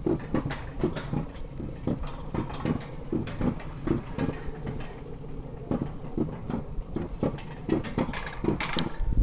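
Summer toboggan (alpine coaster) sled running down its steel rails, the wheels rumbling and knocking over the rail joints in a regular rhythm of about three knocks a second. Near the end a loud low rush of wind on the microphone sets in.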